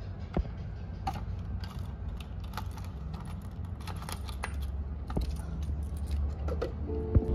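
Scattered light clicks and clinks of small hard objects being handled, over a steady low rumble. Soft music comes in near the end.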